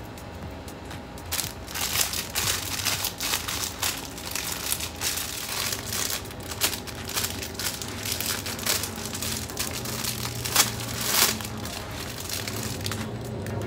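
Plastic wrapping crinkling and rustling in the hands as baby headbands are pulled out of it: a dense, irregular run of crackles that starts about a second in and stops shortly before the end.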